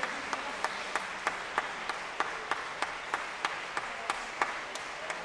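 Concert-hall audience applauding. Single claps stand out sharply above the general clapping, about three a second.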